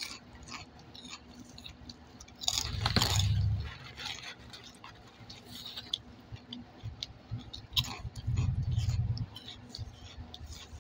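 A person chewing crunchy puffed pork rinds, with small crisp crunches throughout. Two louder, low rumbling bursts, each about a second long, come about three seconds and eight and a half seconds in.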